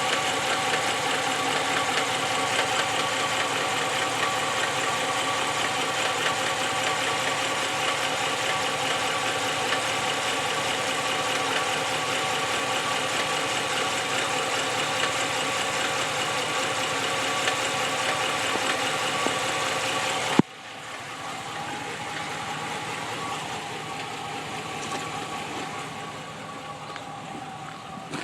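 2014 Ram 1500's 5.7-litre Hemi V8 running at idle with a knock from the engine. About two-thirds of the way through there is a single sharp bang, after which the engine sounds quieter and muffled.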